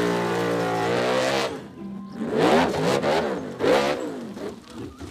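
Off-road racing buggy's engine revving hard on a steep dirt climb. It is held high for about a second and a half, then gives three quick blips that rise and fall in pitch.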